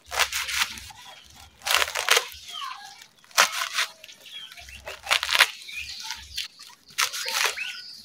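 Fresh papaya leaves being chopped with a knife and handled on a sack cloth: five short bursts of leafy rustling, about one every one and a half to two seconds.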